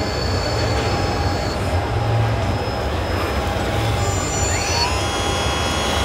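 Radio-controlled scale Caterpillar bulldozer pushing soil: a steady low rumble with a thin high whine over it. Music fades in about five seconds in.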